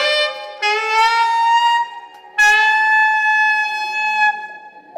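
Saxophone playing held notes. One note ends just after the start, a second is held for about a second, and a third for about two seconds, with short breaks between them. A faint steady tone sounds underneath throughout.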